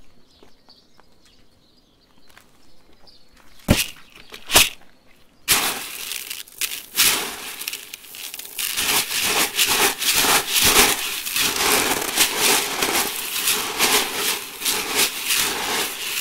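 Plastic airsoft BBs rattling against each other and the sides of a plastic bucket as a hand stirs and scoops through them. It is a dense, loud crackling rattle that starts about five seconds in, with two sharp clicks a little before it.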